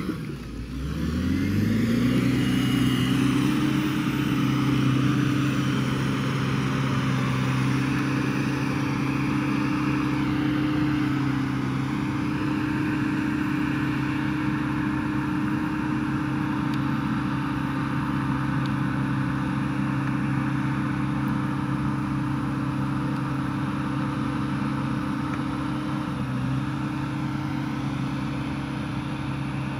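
Caterpillar D7R crawler dozer's diesel engine revving up over the first couple of seconds, then running steadily at high revs, its pitch dipping slightly a couple of times.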